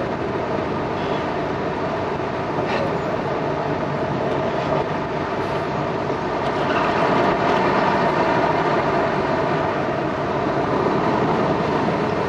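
Boat engines running steadily, with a steady rush of noise, a little louder from about halfway through.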